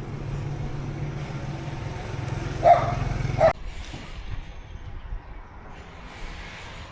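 A dog barks twice, about a second apart, over a steady low motor hum that cuts off suddenly right after the second bark.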